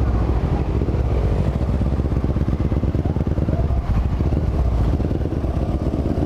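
Honda CB500 parallel-twin motorcycle engine running steadily while ridden.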